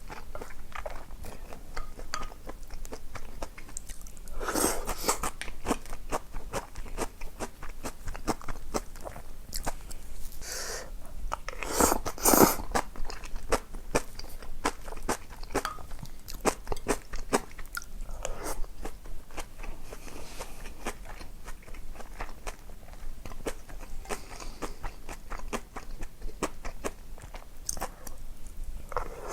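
A person chewing and crunching food close to the microphone, with many small crunches and a few louder bites about five, eleven and twelve seconds in.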